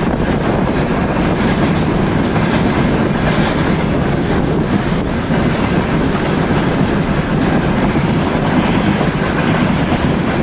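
Fast freight train passing very close at speed: a loud, steady din of steel wheels running over the rails, with a thin high wheel squeal coming and going.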